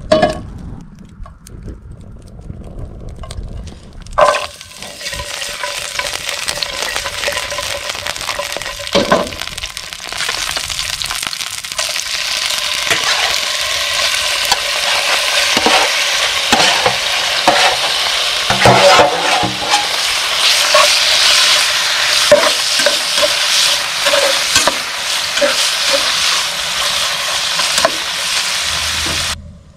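Chicken hearts and garlic sizzling in a hot skillet on a grill. The sizzle starts about four seconds in as the hearts go into the pan, then grows louder. A metal spatula scrapes and clinks against the pan as the hearts are added and stirred.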